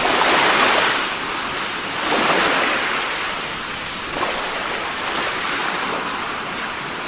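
Ocean surf washing over sand and rocks at the mouth of a sea cave: a steady rush of water that swells louder twice in the first few seconds.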